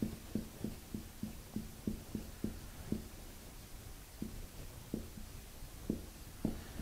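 Marker pen writing on a whiteboard: a string of short, soft taps and strokes, a few each second, as characters are written.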